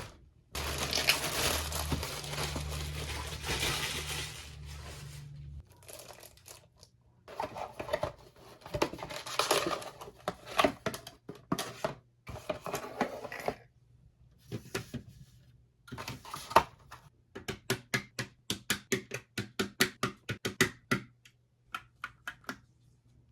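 Crinkling, rustling noise for about five seconds. Then a mechanical keyboard fitted with Akko V3 Cream Yellow Pro linear switches clacks in uneven bursts of keystrokes, ending in a steady run of about five strokes a second.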